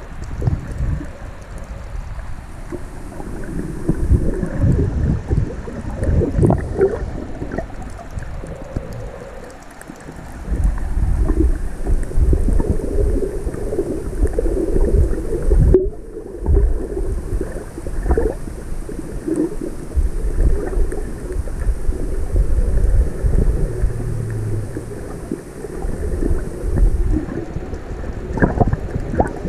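Muffled underwater water noise picked up by a camera in a waterproof housing: a dull, uneven rumble of moving water with irregular low thumps and sloshing.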